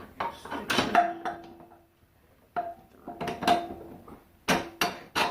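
Metal parts and an Allen wrench clinking and knocking as a brake caliper is bolted on, a run of sharp clinks with a brief metallic ring, in two bunches with a short pause between.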